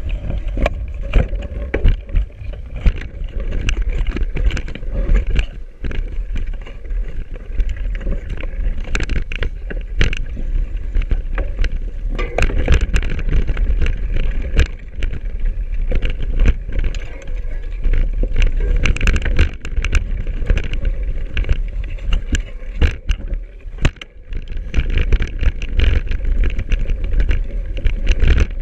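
29er mountain bike on Schwalbe Smart Sam tyres rolling over a rough, frozen forest trail. There is a constant deep rumble with many sharp rattles and knocks from the bike, heard through a handlebar-mounted action camera's microphone.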